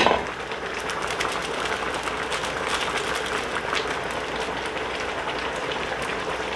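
Canned-mackerel and radish stew boiling steadily in a stainless steel pot: a continuous, even bubbling crackle.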